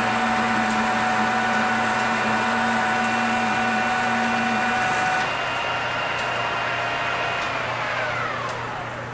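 Engine lathe under a heavy cut, 100 thou deep at 0.020 feed, with a hand-ground high-speed steel tool with a chip breaker, breaking its chip into short C and 6 shapes. It makes a steady machine whine with light scattered ticks. The cut ends about five seconds in, and near the end the spindle winds down with a falling whine.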